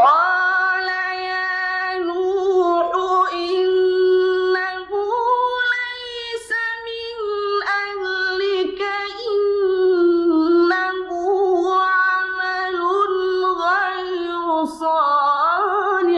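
Quran recitation in the ornate, melodic mujawwad style: a young man's high voice chants one long phrase with many turns and ornaments, starting suddenly and breaking off near the end.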